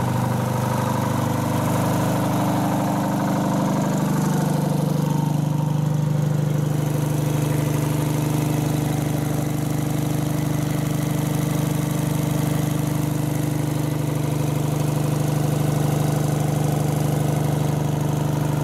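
Engine of a 1952 Unit 614 crane idling steadily.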